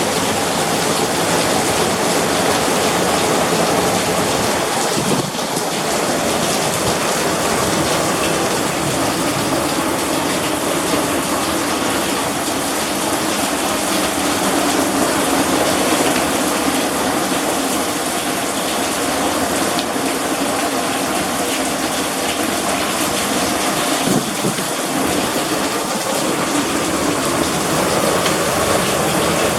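Heavy rain mixed with hail, pouring down in a loud, steady rush.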